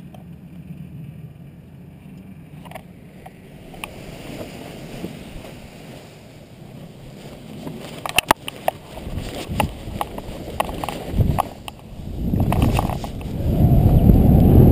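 Wind buffeting the microphone during a paraglider launch, faint at first and growing into a loud low rumble over the last few seconds as the pilot runs and takes off. Scattered sharp knocks and rustles in the middle, while the canopy is pulled up overhead.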